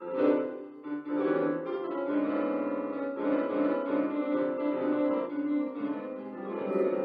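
Electronic keyboard played with both hands: a dense run of notes that starts suddenly, with a brief dip about a second in.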